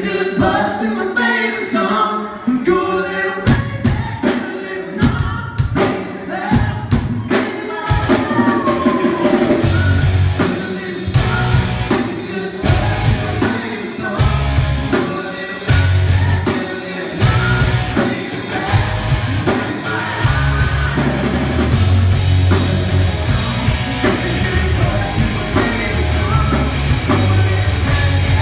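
Live rock band playing: a lead singer sings over electric guitar and drums. The first few seconds are sparse, with the full band coming in heavily, drums and bass, about ten seconds in.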